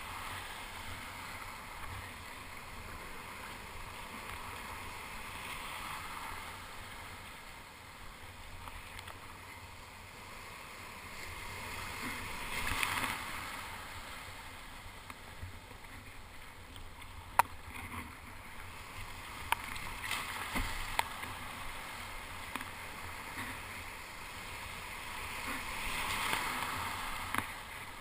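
Surf and whitewater rushing around a kayak being paddled through breaking waves, a steady wash that swells louder about halfway through and again near the end. A few sharp knocks come in between.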